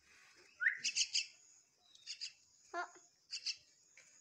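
Young common myna giving short, harsh high chirps in quick groups of two or three, repeated about once a second.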